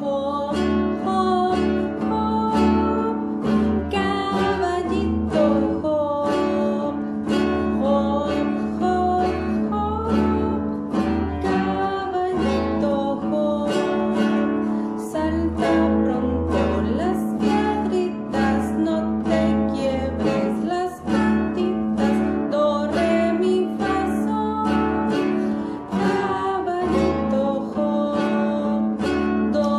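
A woman singing a children's song to her own strummed acoustic guitar, at a slow tempo with about two strums a second.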